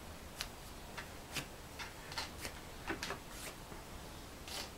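Soldering iron tip being cleaned: a string of about ten irregular light clicks and short scrapes.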